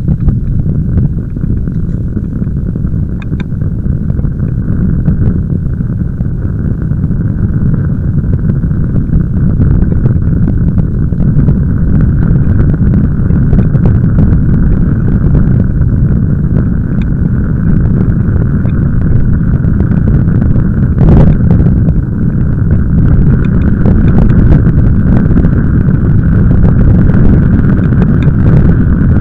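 Wind buffeting the microphone of a bicycle-mounted camera while riding, a steady low rumble mixed with tyre noise on tarmac, with an occasional knock from a bump.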